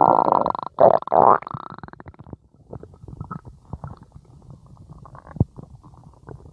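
A stomach growling: loud gurgling rumbles over the first second and a half, then quieter crackling gurgles and small pops.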